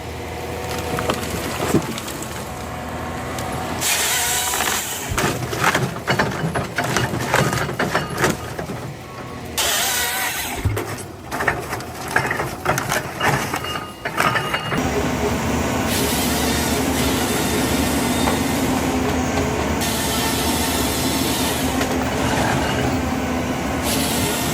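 Heavy forestry machine at work on timber: its engine runs under irregular cracking and snapping of wood through the first half. From about fifteen seconds in there is a steady, even engine drone.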